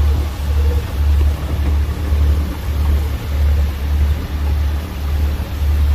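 Fishing boat's engine running with a steady low throb that pulses a little under twice a second, under a wash of water noise.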